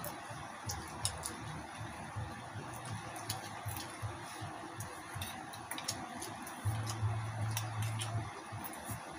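Close-up eating sounds of crispy pork head being chewed: wet lip-smacking and many small sharp mouth clicks, scattered irregularly. A low hum underneath swells for about a second and a half about two-thirds of the way in.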